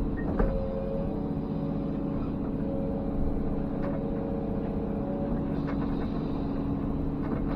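Komatsu PC210 excavator's diesel engine running steadily with a hydraulic whine that sets in about half a second in and comes and goes. A few light knocks come from the work.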